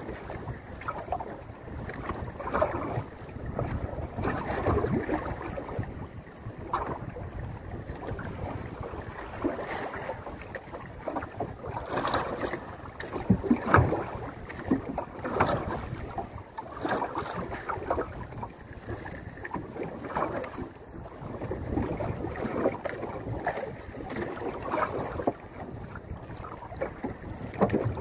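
Water lapping and slapping unevenly against the hull of a small outrigger boat, with wind buffeting the microphone.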